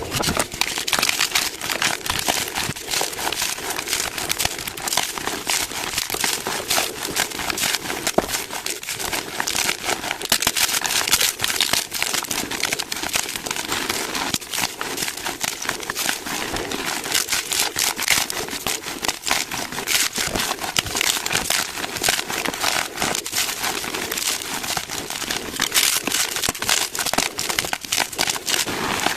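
Gym chalk being crushed: a dense, continuous crunching crackle of many small cracks, made up mostly of crisp high crunches.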